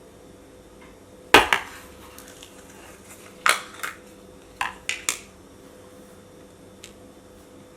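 Thick slime being pressed and stretched, popping its trapped air bubbles: sharp pops in small clusters, two, then two, then three in quick succession, with one faint pop near the end.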